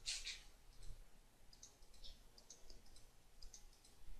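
Faint computer mouse clicks: a few soft, scattered clicks, with a slightly louder one right at the start.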